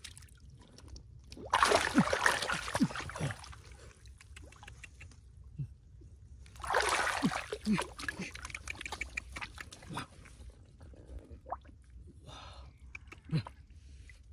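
Shallow field water splashing in two loud bursts, one about two seconds in and another about halfway through, with scattered smaller splashes after each.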